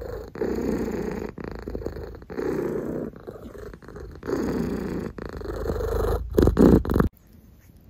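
Domestic cat purring close to the microphone, in repeated stretches of about a second with short breaks between, louder near the end before it cuts off abruptly about seven seconds in.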